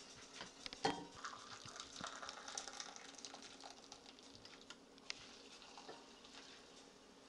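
Water poured from a stovetop kettle into a small cup, a faint hiss and trickle with small clinks, and a sharp knock about a second in.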